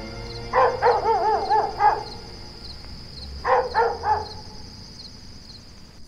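A dog barking: a quick run of about five barks, then three more about three and a half seconds in, over a steady high chirping of insects.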